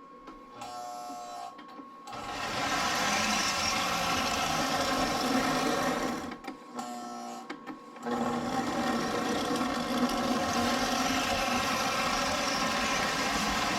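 Lionel O-gauge F3 diesel locomotive running on track, a steady mechanical whir of motor and wheels. It starts about two seconds in and drops out briefly around the middle before resuming.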